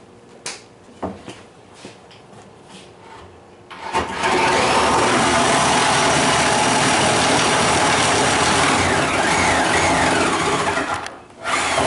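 A few light knocks, then a woodworking power tool switched on and running loudly and steadily for about seven seconds. It cuts off, then starts again briefly near the end.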